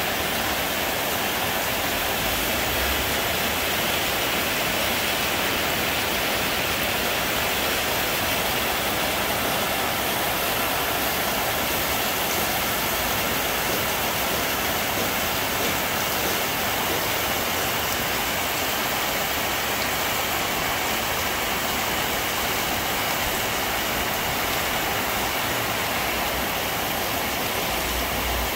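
Heavy tropical rain falling steadily on foliage and rooftops, a constant even hiss with no let-up.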